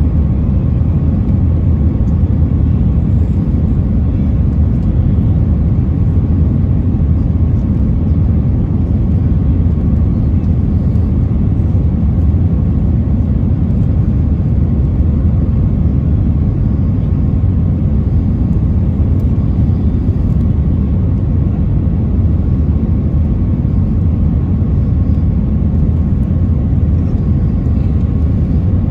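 Steady roar of jet engines and rushing airflow inside the cabin of an easyJet Airbus A320-family airliner on approach to landing, with a faint steady whine above it.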